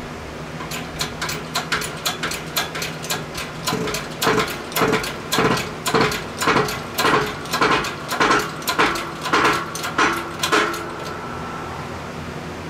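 Shop press being worked in a steady rhythm, a squeaky creak about twice a second, as it presses the timing gear down onto the Cummins 4BT camshaft. The strokes stop about two seconds before the end, when the gear has bottomed out, leaving a steady low hum.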